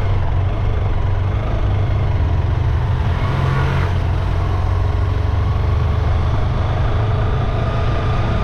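Motorcycle engine running steadily while riding. Another motorcycle passes close by about four seconds in.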